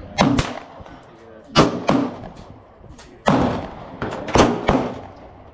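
Handgun shots on a shooting range: four loud, sharp shots about a second and a half apart, with quieter shots in between. Each shot trails a short echo.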